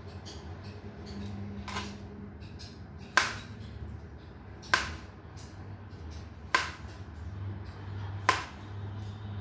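Knife slicing through plantain and striking a cutting board: sharp chops about every one and a half to two seconds, five in all, the first one faint.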